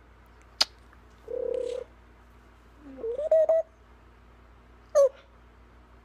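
African grey parrot making a string of short vocal sounds: a sharp click, a brief low hum about a second in, a short rising call halfway through, and a quick falling squawk near the end.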